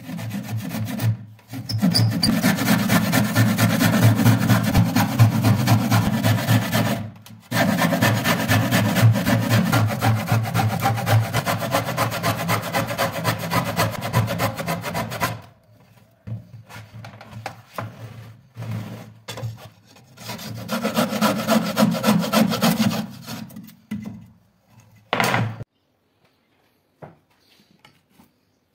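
Narrow-bladed hand saw cutting a curve through stacked plywood sheets with fast back-and-forth strokes, in long runs broken by brief pauses. About halfway through the sawing thins out to lighter scraping, with one more short run of strokes near the end.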